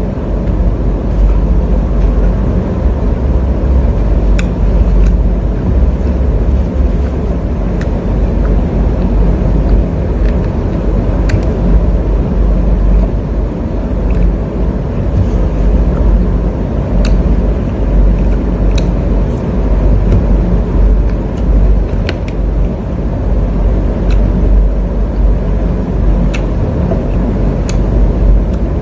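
Loud, steady low rumbling noise with a faint click every second or two.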